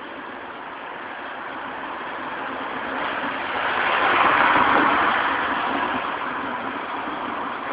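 A road vehicle driving past on the street, growing louder to a peak about halfway through and then fading away.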